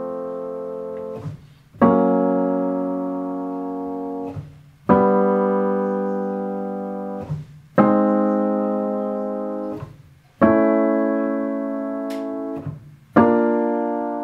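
Acoustic piano freshly tuned to equal temperament, playing major chords one after another, five in all, each struck, held about two and a half seconds as it fades, then released, stepping up the keyboard. The chords sound settled, quiet and clean, with little beating.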